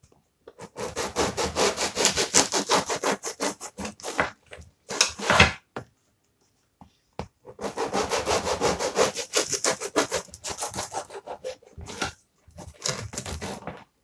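Bread knife sawing through a crusty baked white loaf in quick back-and-forth strokes, the hard crust rasping under the blade. Two slices are cut, with a pause of a second or two about halfway between the bouts of sawing.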